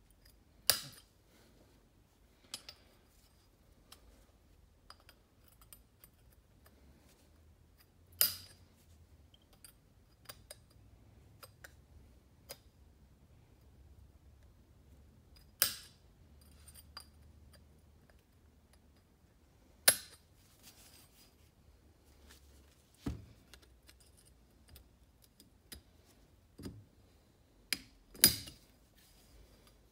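Small metal engine parts clinking and clicking as pistons, wrist pins and circlips are handled during piston assembly. Sharp single clicks and clinks every few seconds, about six louder ones among fainter ticks.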